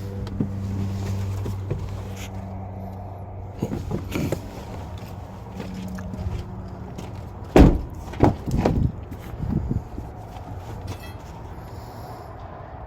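A low steady hum, with a quick cluster of three or four loud knocks about three-quarters of the way through.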